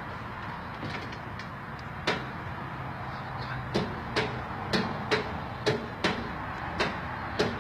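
A series of sharp, irregular knocks and clicks, about ten of them, beginning about two seconds in, over a steady low background hum.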